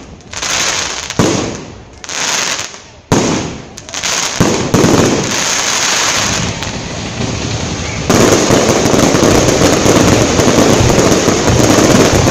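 Aerial fireworks bursting: sharp bangs about one, three and four seconds in, each trailing off in crackling, then a dense, continuous crackle of many bursting stars from about eight seconds on.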